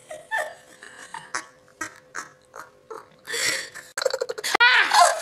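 Short giggles and snickering, then about four seconds in a rattly, croaking vocal noise that turns into a loud whining, whimpering cry, made up for fun.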